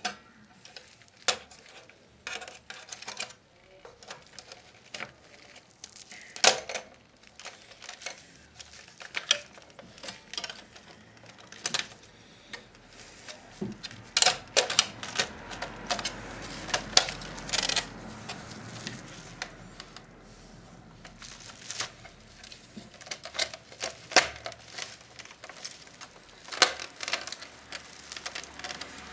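Irregular hard plastic clicks and knocks as the Philips D6350's chassis is worked back into its plastic case, with a denser run of clicks and rubbing about halfway through.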